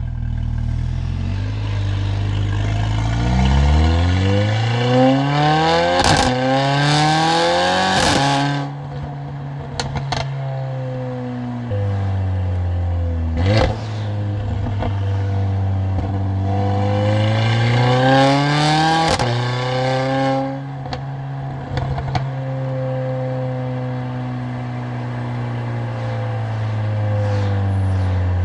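Mercedes-AMG CLA45's turbocharged 2.0-litre four-cylinder exhaust under two hard accelerations, the engine note climbing steeply each time and then falling away. Sharp cracks and pops come as it shifts and lifts off. In between and toward the end it cruises at a steady drone.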